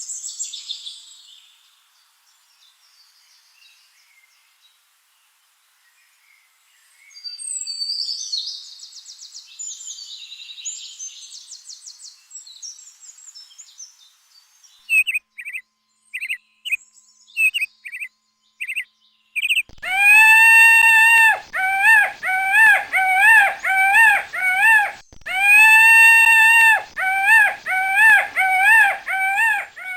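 High-pitched chirping and trills in the first half. Then a peacock calls loudly: short notes from about fifteen seconds in, and from about twenty seconds long drawn calls alternating with quick runs of shorter ones, about two a second.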